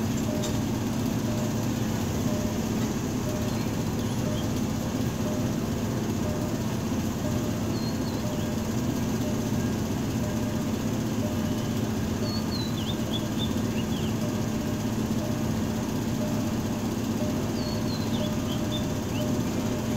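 Steady hum of a State Railway of Thailand ALS diesel locomotive idling while the train stands still. A bird chirps briefly three times, about a third of the way in, past the middle, and near the end.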